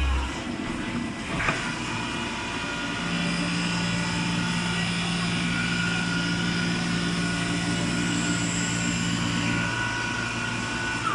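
Steady running of CNC automatic lathes, a mix of steady machine tones. There is a sharp click about a second and a half in, and a lower tone comes in about three seconds in and stops near the end.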